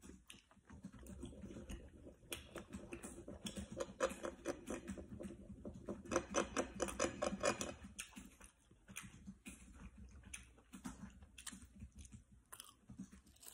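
Metal fork clicking and scraping against a small ceramic dish as a dumpling is cut up, with soft chewing. The clicks come thickest in the middle and thin out toward the end.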